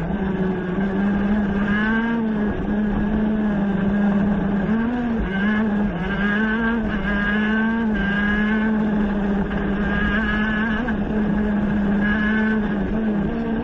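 Race car engine heard onboard, held at high revs around 12,000 rpm. Its note dips and rises slightly several times as the car goes through corners, over a steady rush of wind and road noise.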